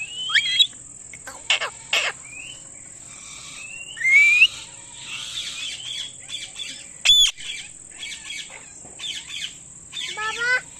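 Indian ringneck parakeet giving a string of short chirps and whistled calls, including a rising whistle about four seconds in and a loud sharp call about seven seconds in. A steady high-pitched whine runs underneath.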